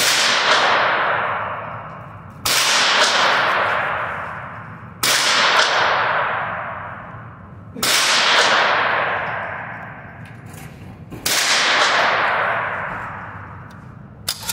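Five rifle shots fired one at a time in an indoor shooting range, about two and a half to three and a half seconds apart. Each crack rings off the concrete walls and fades slowly.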